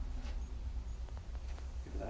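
A few faint, light clicks over a steady low hum.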